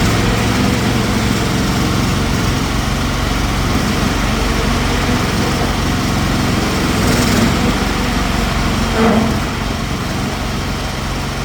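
Mini excavator's small engine running steadily. About nine seconds in there is a short rise in pitch, after which it runs a little quieter.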